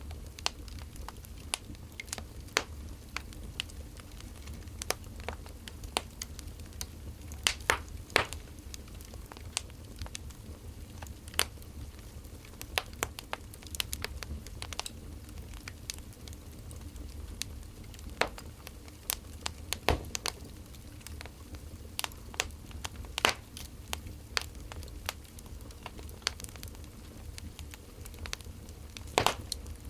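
Wood fire crackling: irregular snaps and pops of burning firewood, some sharper and louder than others, over a steady low rumble.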